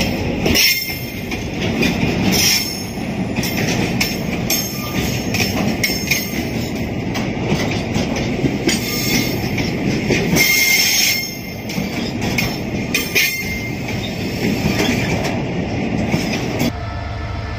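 Freight train of LPG tank wagons rolling past on curved track: a steady rumble of steel wheels on rail, broken every couple of seconds by short metallic squeals and clacks from the wheels. Near the end the sound changes to a steadier, more even rumble.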